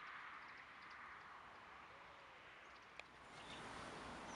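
Near silence: faint outdoor ambience, a steady soft hiss with a few faint high chirps and one sharp click about three seconds in.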